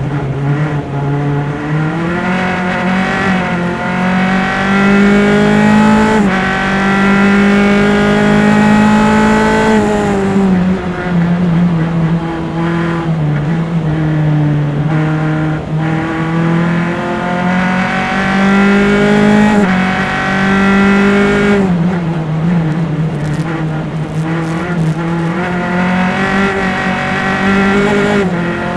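Single-seater formula race car engine, heard close through its engine-mounted mics, pulling hard through the gears around a lap. Its note climbs, drops suddenly at upshifts about 6, 15 and 20 seconds in, and falls away under braking for corners around 10 and 22 seconds in.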